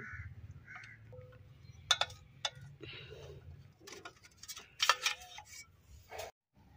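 Small metal clicks and scrapes of a screwdriver working the screws on the rear cover of an electric water-pump motor, the strongest clicks about two seconds in and about five seconds in.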